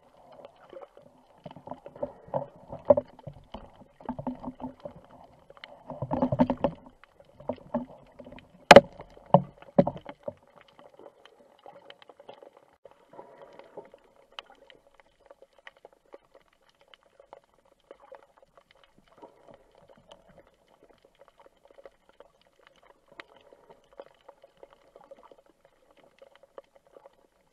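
Underwater knocks and bumps, then one sharp clack of a band-powered speargun (arbalete) firing, about nine seconds in, the loudest sound; a few more thuds follow. After that only scattered faint clicks and a faint steady tone.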